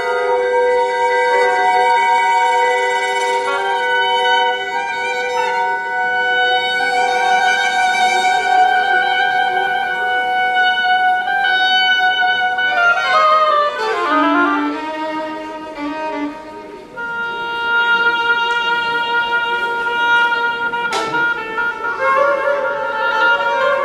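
Oboe and flute holding long, overlapping sustained notes over bowed strings in a slow contemporary orchestral piece. About halfway through, a line slides downward in pitch and the music thins briefly before new long notes come in.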